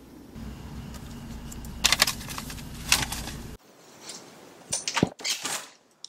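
Knocking on a wooden apartment door, a quick cluster of raps about two seconds in and another a second later. Then a deadbolt clicks and the latch rattles as the door is unlocked and pulled open.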